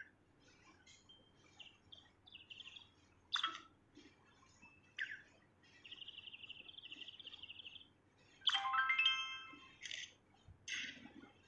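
A songbird singing in short, varied phrases: sharp chirps, a steady trill lasting about two seconds from roughly six seconds in, then its loudest note, rich and many-toned, around eight and a half seconds.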